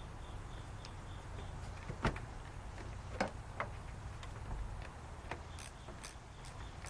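A few separate sharp metallic clicks and taps from a wrench tightening the nuts on new battery terminals, over a steady low hum.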